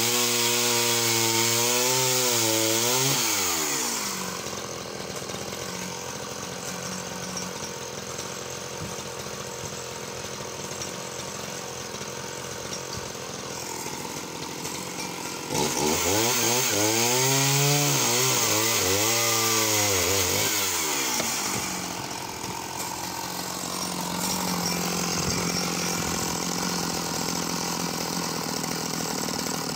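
Sachs Dolmar 111 52cc two-stroke chainsaw cutting through wood. It is revved at high throttle at the start and again in the middle, with the pitch swinging up and down, and between the revs it runs lower and rougher while the chain is in the cut.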